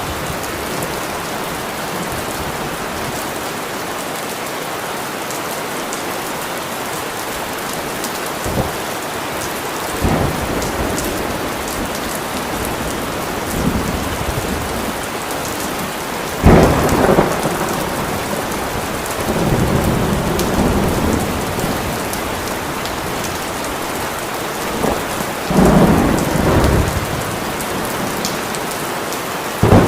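Steady rain falling hard, with rolls of thunder over it. A sharp clap comes just past halfway and is the loudest thing, followed by a long rumble, and another thunderclap comes near the end.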